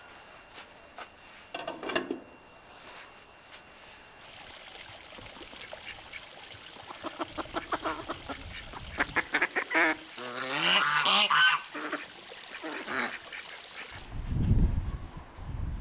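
Domestic ducks quacking: a short call early, then a fast run of quacks and longer wavering calls in the middle. A loud low thump comes near the end.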